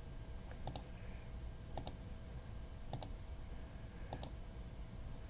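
Computer mouse clicking: four single clicks about a second apart, faint against a low steady background hum.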